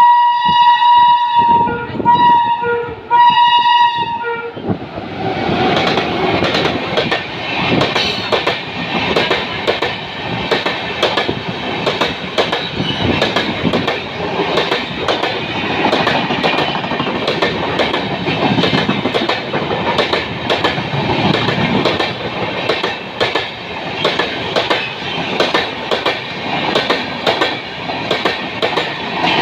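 WAP-7 electric locomotive sounding its horn in three blasts. About five seconds in, the express's LHB coaches run through at speed, their wheels clattering steadily over the rail joints.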